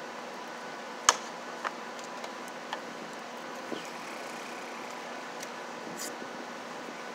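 Scattered clicks and taps of a yellow electrical cable and hands working at a blue plastic electrical box, the sharpest about a second in, over a steady faint hum.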